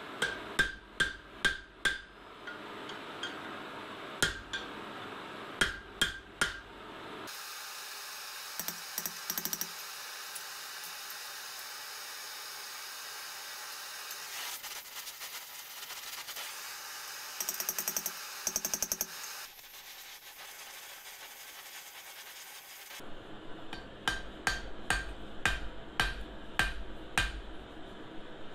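Hand hammer striking the red-hot jaws of farrier hoof nippers on a steel anvil horn, quick runs of sharp blows to close the gap between the cutting blades. In the middle, the blows stop for a long stretch of steady hiss.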